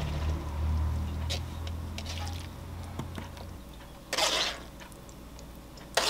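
Cooked farfalle pasta tipped from a metal mesh sieve into a wooden salad bowl, sliding out twice about two seconds apart, with a few small clicks. A low hum underneath stops about halfway through.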